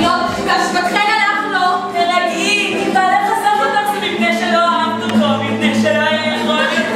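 Several women singing together on stage, their voices overlapping in a lively tune.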